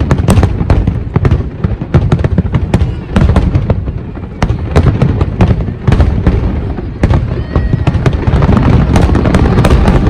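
Fireworks bursting in rapid succession: many sharp crackling pops over a continuous low rumble of booms.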